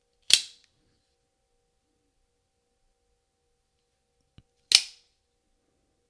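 Prometheus Design Werx SPD UFO out-the-front knife's spring-driven blade action snapping sharply twice, about four and a half seconds apart, with a faint click just before the second snap.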